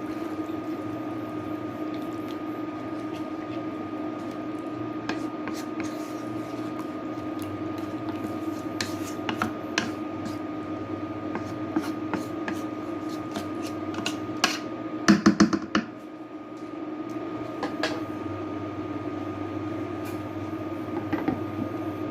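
Steady machine hum in a kitchen with scattered light clicks, and a quick clatter of several knocks about fifteen seconds in, like a pot lid being handled.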